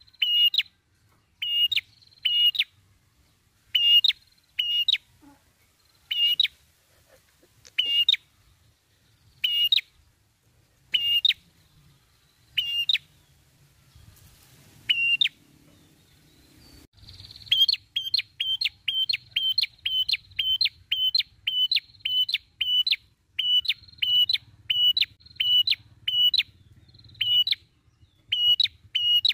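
Red-headed prenjak (a tailorbird) calling in sharp, high, repeated notes, about one a second at first. A little past the middle the notes quicken into a fast, steady run of about three a second.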